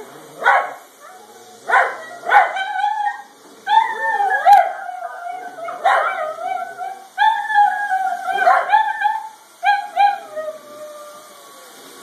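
Italian greyhound howling in long held notes that slide down in pitch at their ends, broken by sharp barks in the first couple of seconds and again in the middle.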